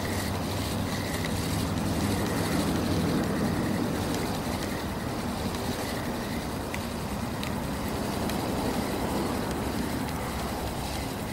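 Small boat's outboard motor running steadily while the boat is underway.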